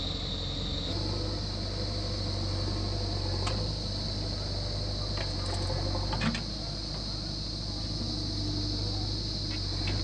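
Diesel engines of a JCB 3DX backhoe loader and a tractor running steadily with a low drone while soil is loaded into the tractor's trolley. A few knocks come around the middle as the bucket tips soil into the trolley, over a steady high hiss.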